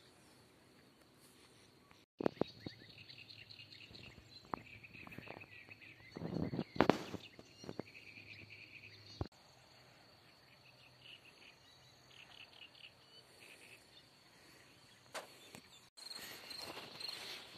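Rural outdoor ambience: small birds twittering in quick series of short chirps over a steady high-pitched insect trill. A few sharp clicks, and a louder muffled rumble about six to seven seconds in.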